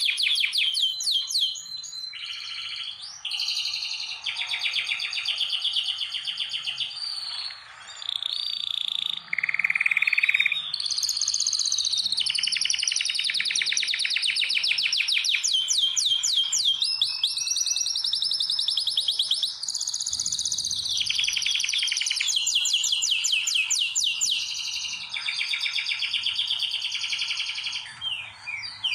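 Male domestic canary singing a long, nearly unbroken song of rapid trills and repeated-note rolls, with a few brief pauses. This is a male in breeding condition, singing to stimulate females to mate.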